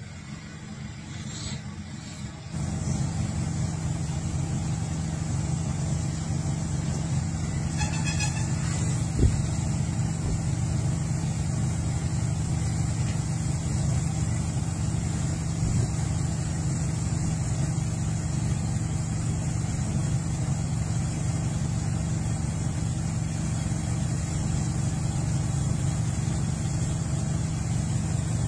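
A car driving, a steady low engine and road rumble that comes in abruptly about two and a half seconds in and then holds even.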